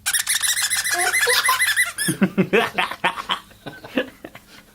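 Bird chirping in a quick run of high chirps for about two seconds, then a baby laughing in short bursts.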